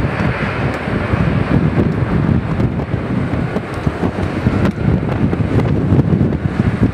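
Boeing C-17 Globemaster III's four turbofan engines running at taxi power as the aircraft turns on the runway. The sound is a steady, low-heavy noise, mixed with wind buffeting on the microphone.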